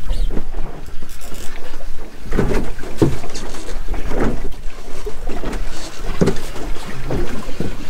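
Choppy sea slapping irregularly against the hull of a small drifting fishing boat, with wind buffeting the microphone in a steady low rumble.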